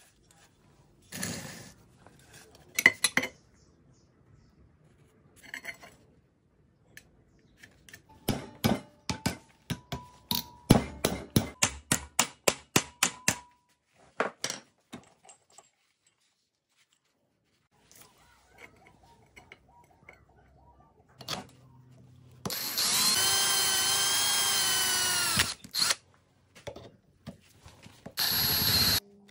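Workshop metalwork: scattered knocks, then a fast run of sharp metal knocks, about four a second, with a faint ringing tone. Later an electric drill runs for about three seconds, drilling an aluminium strip held in a vise, and starts again briefly near the end.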